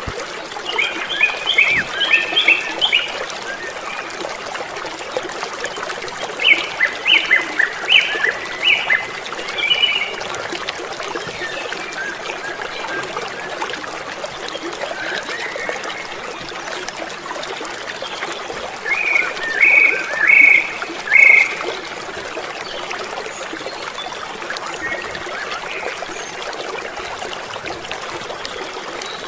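River water running in a steady wash, with a bird calling in three bouts of quick, repeated short notes: near the start, again about a quarter of the way in, and once more past the middle.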